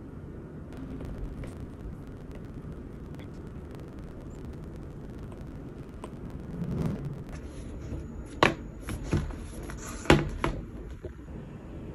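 Stylus tip tapping and writing on a tablet's glass screen, light taps, then a folding tablet cover being flapped shut over it, with a few sharp slaps and clicks, the loudest about eight and a half and ten seconds in.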